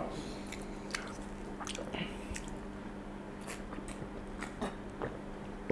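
Person drinking from a glass soda bottle: faint mouth and swallowing sounds with a few light scattered clicks, over a low steady hum.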